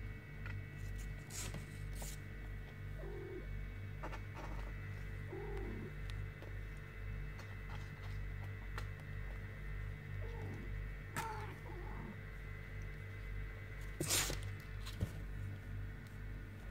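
Kittens mewing faintly a few times in short rising-and-falling cries, amid scratches and rustles of paws and cloth in a cardboard box. A loud brief rustle comes a little after the middle, over a low pulsing hum.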